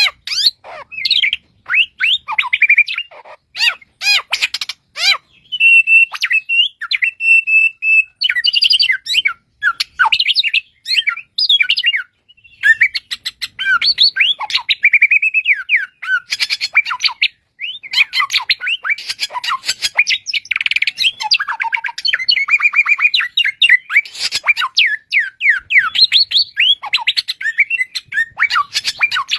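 A branjangan (Horsfield's bushlark) singing a long, varied song of quick chirps, trills and slurred whistles, broken by short pauses. It holds one steady whistle for about two seconds some six seconds in.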